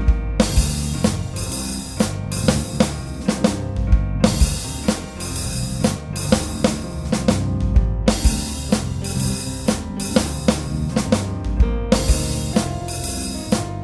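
Music led by a drum kit, with kick drum, snare and cymbals keeping a steady beat over a bass line. The cymbals drop out briefly about every four seconds.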